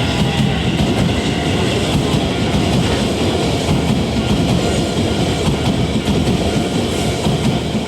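Electric commuter train passing close by, a loud steady rumble of wheels on rails.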